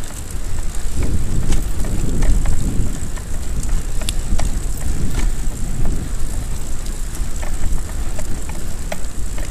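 Folding bicycle rolling along an asphalt path: a steady rumble of wind on the microphone and tyre noise, with a few faint clicks scattered through it.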